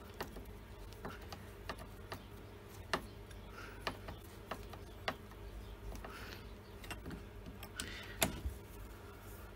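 Scattered small clicks and taps of a hand screwdriver turning screws into the plastic top cover of a Stihl MS170 chainsaw, with light knocks of the tool against the housing. The loudest click comes about eight seconds in.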